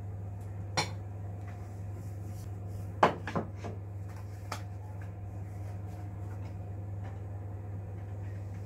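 Handling noises at a kitchen counter: a sharp click about a second in, then a louder pair of knocks about three seconds in, with a few faint ticks after, over a steady low hum.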